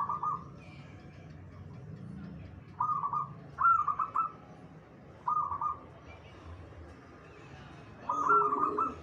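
Zebra dove (perkutut) cooing: four short phrases of quick rolling notes, with pauses of one to three seconds between them.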